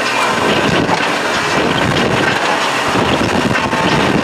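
Wind buffeting the microphone: a steady, loud rushing noise with low rumbling gusts.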